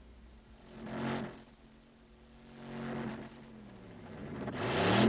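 Cartoon engine sound effect of a motorized chariot. It rises and fades faintly twice, then grows steadily louder near the end as the vehicle approaches.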